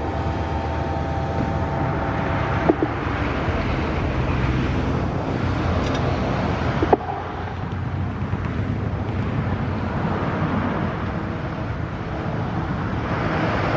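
Steady rush of passing road traffic, swelling and fading, with a brief sharp click about seven seconds in.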